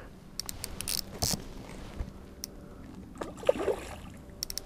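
Light water splashing and scattered short clicks as a hooked trout is played on a fly rod, with a longer splash a little past three seconds in.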